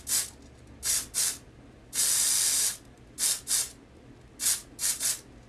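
Aerosol spray can being sprayed in a series of short hissing puffs, mostly in pairs, with one longer spray of under a second about two seconds in.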